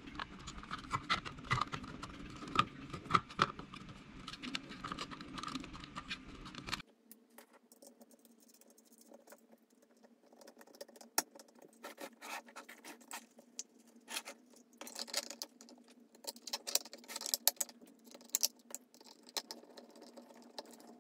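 Hard plastic parts of a 3D-printed RC tank being handled and fitted together: quiet, irregular clicks, taps and scratches. They are dense for the first several seconds. After a cut they become sparser, with light scraping and ticking as a small hand screwdriver drives screws into the plastic body.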